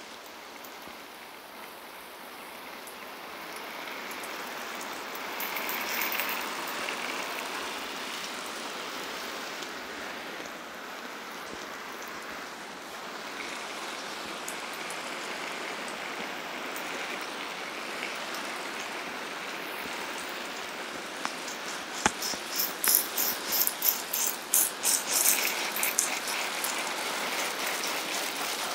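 Water spray from a garden hose spattering on a wooden fence and plastic buckets: a steady hiss of falling water. About three-quarters of the way in it turns into a louder, uneven patter of sharp ticks.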